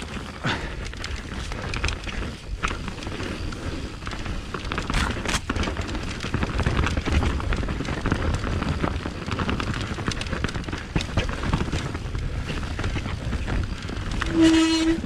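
Mountain bike riding down a rough trail: wind rumbling on the microphone and the bike rattling and clicking over the ground, with a short steady squeal near the end.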